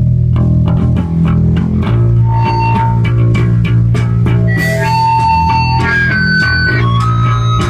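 Live hardcore punk band kicking into a song: loud distorted electric guitars and bass with fast drums, with high held guitar notes ringing out over it about five seconds in.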